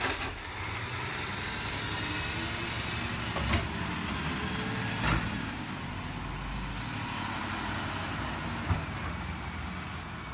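Automated side-loader garbage truck running at the curb, its engine rumbling steadily under a thin high whine that climbs about half a second in and sinks away near the end, with a few sharp knocks along the way as the truck's arm works a can.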